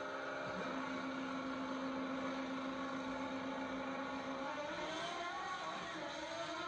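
Two Pro Stock drag motorcycles' engines held at steady revs on the start line, then rising in pitch as they launch about four and a half seconds in. The sound is old VHS footage heard through a TV's speaker.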